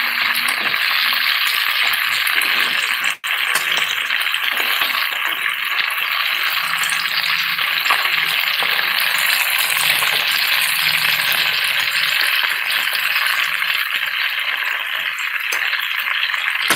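Bluefish fillets frying in about half an inch of hot oil: a loud, steady crackling sizzle. It drops out for an instant about three seconds in.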